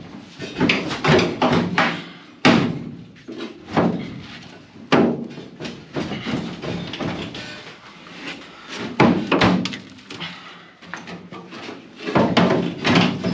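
Large sheet-steel trunk floor pan with wheel tubs attached knocking, clanking and scraping against the car body as it is forced down into a tight fit. Irregular sharp metal knocks ring out over the rubbing, several of them loud.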